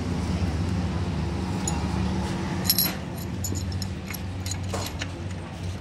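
A few light metallic clinks as steel main bearing caps and bolts are handled and seated onto a crankshaft in an engine block; the sharpest, ringing clink comes about two and a half seconds in. A steady low hum sits underneath.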